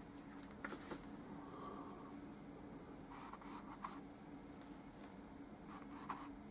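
Faint scratchy strokes of a paintbrush working thick oil paint, in three short bursts, over a steady low hum.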